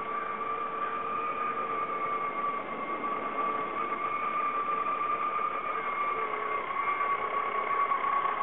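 YikeBike electric folding bike's motor whining at a steady high pitch, getting louder as the rider approaches.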